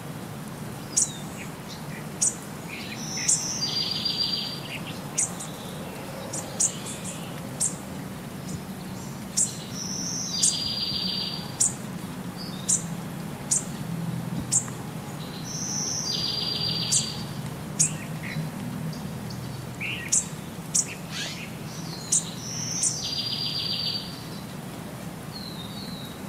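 Birdsong with short, sharp, high chirps and a buzzy trill about a second long, the same pattern coming round again every six or seven seconds as if looped, over a low steady hum.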